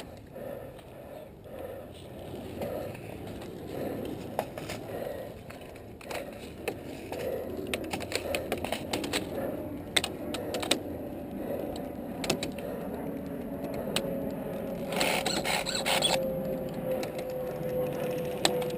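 Airsoft game in a warehouse: even, rhythmic soft steps for the first several seconds, then scattered sharp clicks and knocks. A faint steady tone comes in about twelve seconds in, with a short burst of noise a few seconds later.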